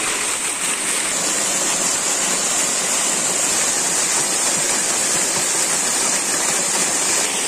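Waterfall rushing steadily, water pouring down over rocks and crashing into a rock pool below.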